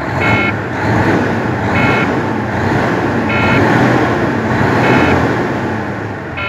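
Detroit Diesel 12.7-litre Series 60 engine, freshly rebuilt, heard from inside the truck cab as it is brought up from idle to raised revs and held there, easing off near the end. A short electronic beep repeats about every second and a half over it.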